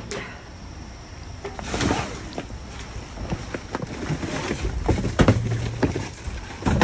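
Someone climbing into a dumpster: scattered knocks, bumps and rustling of trash and bags as she clambers in, busier and louder from about a second and a half in.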